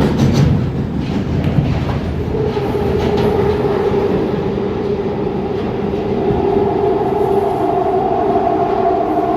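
London Underground Northern line train running through a deep tube tunnel, heard from inside the carriage: a steady rumble of wheels on rail. A steady motor whine sets in about two seconds in, and a second, higher whine joins it about six seconds in.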